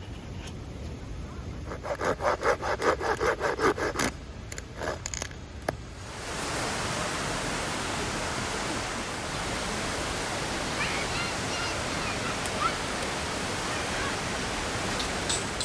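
A fast, even run of scraping strokes, about five a second, lasting roughly two seconds, with a few scattered strokes after it. About six seconds in, a steady rushing hiss takes over.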